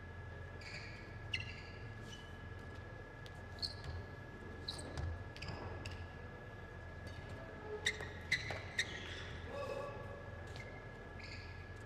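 Badminton shuttlecock struck back and forth with rackets during a warm-up, sharp hits including three about half a second apart a little past halfway. Short high squeaks of court shoes on the sports floor in between, all echoing in a large hall over a steady faint high tone.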